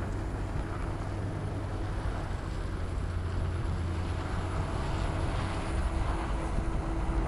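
Bell 212 helicopter's turbine engines running with the main rotor turning slowly, heard from a camera mounted on the rotor blade: a steady low rumble with a constant hum, growing slightly louder toward the end.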